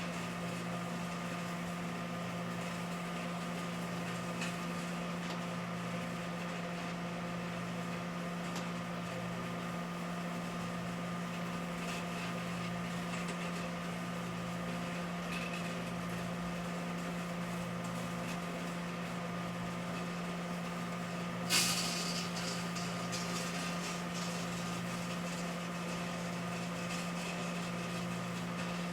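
Microwave oven running with a steady hum while fruit heats inside. About three-quarters of the way through there is one sharp pop, followed by brief crackling.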